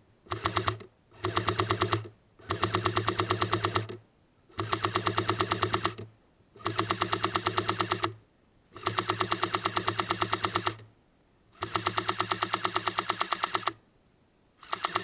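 Airsoft electric M60 support gun firing rapid bursts, eight in all, each lasting about one to two seconds with short pauses between, its gearbox motor whirring under the fast clatter of shots; the last burst starts near the end.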